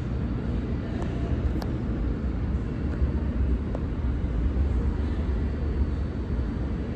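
Steady low rumble of a New York City subway train standing in the station with its equipment running, with a few faint clicks.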